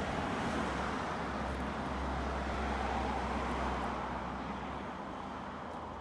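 A road vehicle passing: steady tyre and engine noise that swells to a peak about halfway through and slowly fades toward the end.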